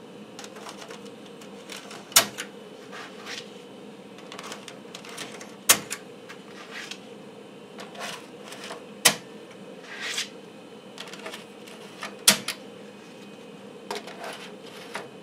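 3.5-inch floppy disks pushed one after another into PC floppy drives, each seating with a sharp mechanical click as the drive's loading mechanism latches. There are four loud clicks about three and a half seconds apart, with lighter plastic clicks and sliding between them, over a steady hum.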